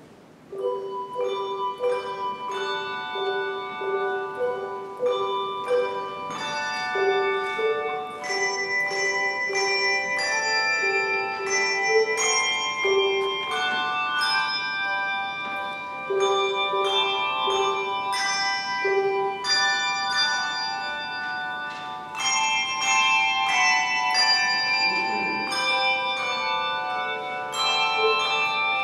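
Handbell choir starting a piece a little under a second in: many handbells ringing a melody and chords, with long ringing tones over a repeated short lower note.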